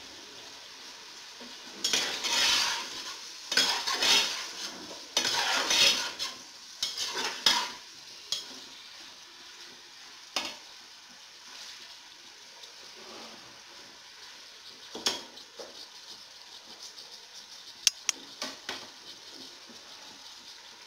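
A steel spatula scrapes and stirs chicken and fried onions in an aluminium pressure cooker over a steady sizzle of frying. Loud scraping strokes come through the first several seconds. After that it goes quieter, with a few sharp clinks of metal on the pot.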